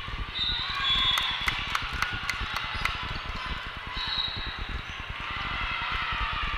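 Voices and shouts from players and spectators echoing in a large volleyball hall between rallies. About a second in comes a quick run of sharp smacks, and two brief high squeaks sound, one early and one past the middle.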